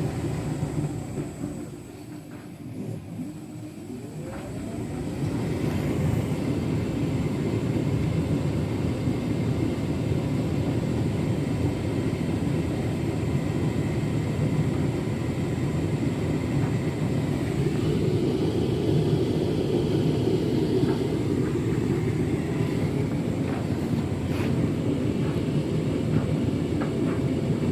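Beko WTK104121W washing machine running its drum-clean wash: the motor's whine falls away about two seconds in, then rises again as the drum starts turning once more, and the drum settles into a steady rumble.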